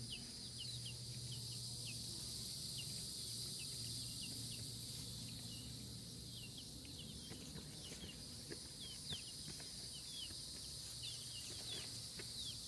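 Outdoor insect chorus, a steady high-pitched drone, with many short chirps that fall in pitch scattered throughout. A low hum underneath fades out about halfway through.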